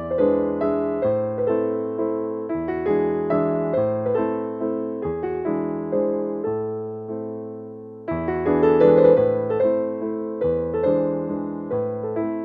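Background piano music: struck notes with chords and a bass line in an even rhythm. One phrase dies away and a new one begins about eight seconds in.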